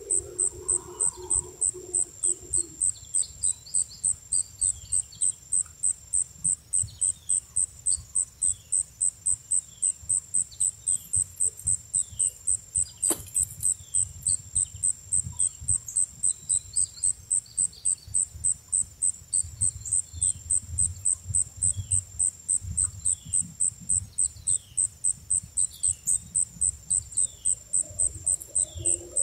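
An insect chirping in a steady, fast, high-pitched pulse, about three chirps a second, with small birds chirping faintly behind it.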